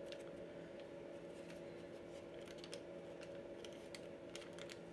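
Faint crinkling and dabbing of a facial blotting paper sheet pressed against the nose, as scattered soft clicks, over a steady low hum.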